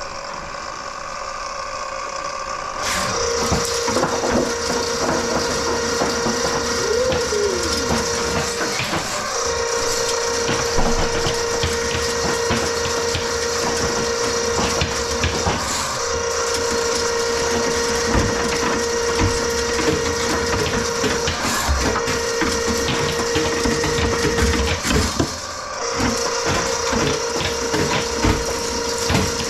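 Electric drain-cleaning machine running a long cable down a grease-clogged kitchen drain line. Its motor hum comes up about three seconds in and holds steady, dipping briefly a few times, over a constant clattering and rattling of the cable.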